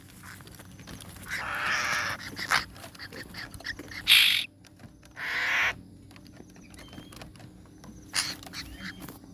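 Young bird giving a series of harsh, raspy begging calls, each up to a second long, the loudest about four seconds in: the chick calls used to lure adult birds.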